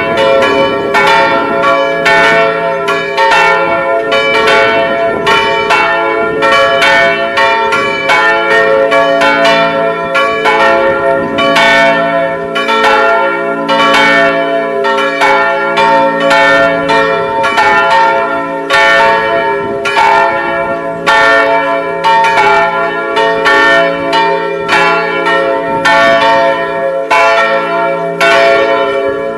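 Three church bells swinging and ringing together, their strikes overlapping irregularly a few times a second over a continuous ringing hum. Loud and close.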